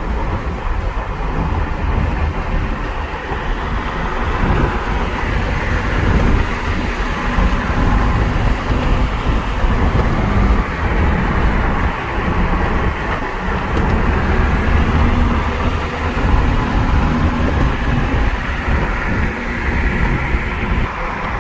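Steady road and tyre rumble inside a moving car.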